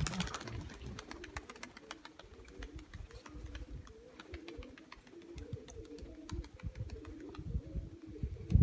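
Domestic pigeons cooing continuously, with scattered faint clicks.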